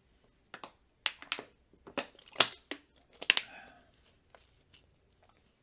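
Irregular sharp clicks and taps, about a dozen packed into the first few seconds, then a few faint ones.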